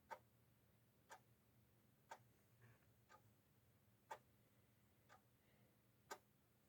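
Near silence with a clock ticking faintly, one tick a second.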